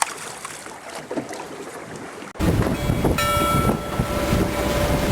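Quieter sounds on the boat with a few light knocks, then an abrupt switch about halfway through to a boat under way: the engine running with a steady whine, and wind blasting the microphone over water noise.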